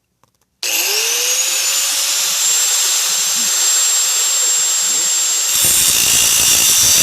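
Handheld power tool with an abrasive cut-off wheel switching on about half a second in, its whine rising as it spins up and then running steady. About five and a half seconds in, a rough grinding rasp joins the whine as the wheel bites into the steel handcuff.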